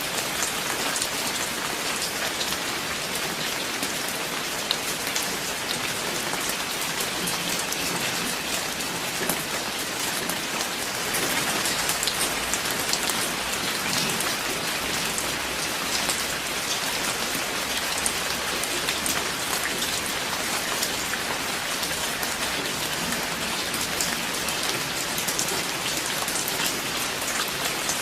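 Steady, even rain with many distinct drop impacts ticking through it.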